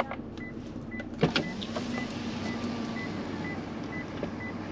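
Tow vehicle's parking sensor beeping steadily, about two short high beeps a second, as it reverses slowly toward the caravan hitch, over the idling engine. A knock about a second in is followed by a brief steady motor hum.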